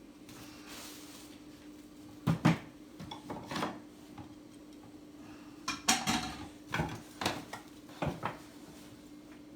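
Ceramic mugs and cups clinking and knocking against each other as they are lifted out of a box, in a string of sharp irregular clinks with two louder clusters.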